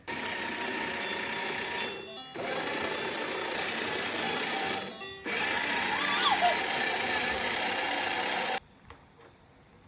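Toy washing machine's small motor running in three bursts of two to three seconds each, with short pauses between, cutting off suddenly near the end.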